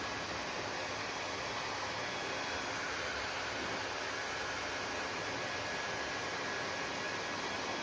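Hair dryer running steadily, giving an even rushing of blown air with a faint steady whine from its motor.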